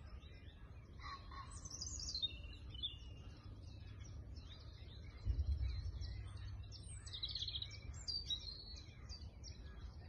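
Several small songbirds singing and chirping in quick, overlapping phrases, with a low rumble underneath that swells suddenly about halfway through.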